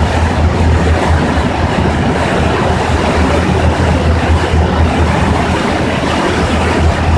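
Passenger ferry underway: a steady low engine drone with rushing water and wind noise, unchanging throughout.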